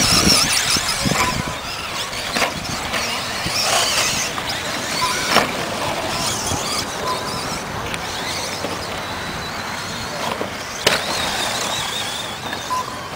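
Radio-controlled short course trucks racing on dirt: electric motors whining up and down in pitch as they accelerate and brake, with several sharp knocks from the trucks landing and hitting the track.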